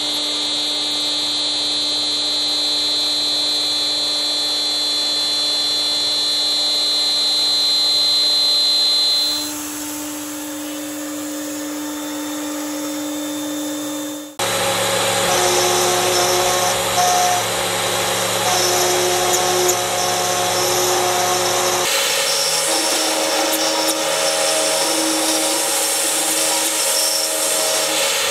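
CNC router spindle milling 20 mm aluminium plate with a small end mill: a steady high whine with cutting noise. The sound changes abruptly about 9 and 14 seconds in, and again a little past 20 seconds, as the cut moves to different passes.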